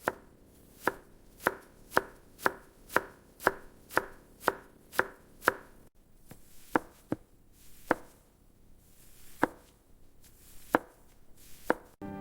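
Knife chopping on a cutting board: crisp strokes at a steady two or so a second for about five seconds, then slower, scattered strokes.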